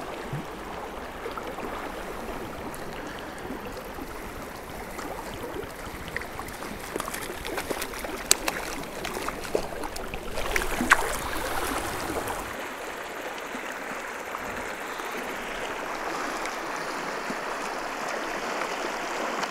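Steady rush of a clear river flowing over rocks and riffles, with a few short sharp ticks near the middle. About two-thirds of the way through, the sound thins to a lighter hiss.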